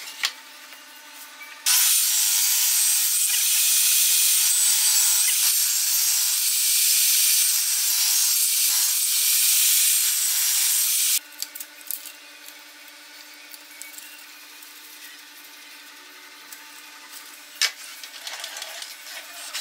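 Table saw running: a loud, steady hiss that starts abruptly about two seconds in and cuts off abruptly about eleven seconds in. A quiet low hum and a single click follow near the end.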